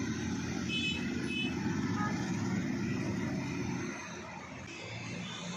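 Go-kart engine running on the track, a dense low drone that fades off about four seconds in as the kart moves away.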